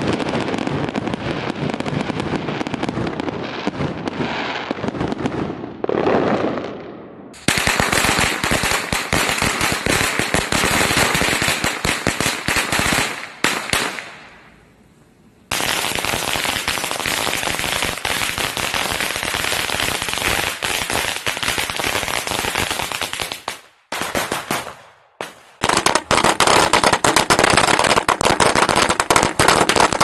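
Aerial fireworks popping and crackling, dying away after several seconds; then strings of firecrackers going off in rapid, continuous cracks, stopping and starting again several times with brief pauses between strings.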